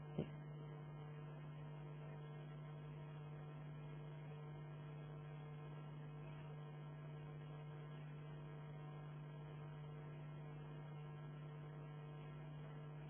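Steady low electrical mains hum picked up by the recording setup, with a single short click right at the start.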